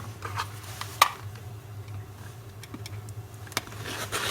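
A few small sharp clicks and light scrapes of a blade trimming (skiving) a thin sliver off the edge of a piece of leather, the sharpest click about a second in.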